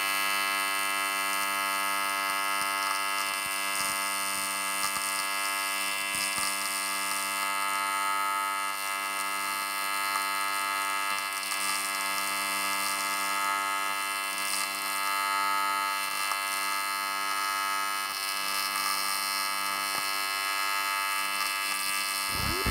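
AC TIG welding arc on aluminium, buzzing steadily as filler is added across a wide gap.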